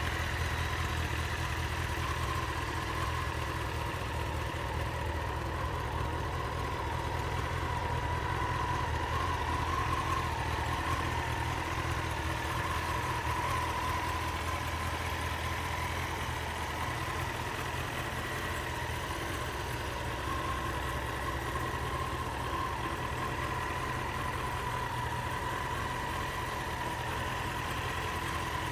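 Honda CBR900RR Fireblade's inline-four engine idling steadily.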